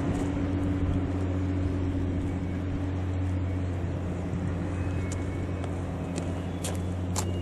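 Steady low mechanical hum of an idling engine, holding one even pitch throughout, with a few light clicks near the end.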